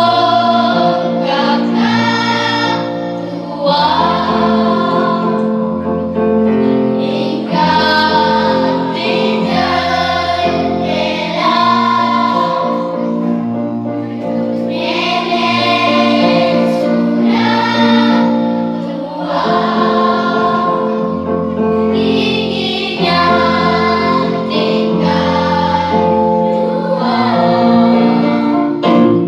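Music: a choir of voices singing a song over an accompaniment with held bass notes.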